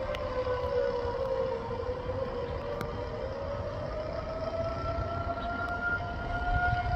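A siren wailing, its pitch slowly falling over the first couple of seconds and then rising again, over a low rumble.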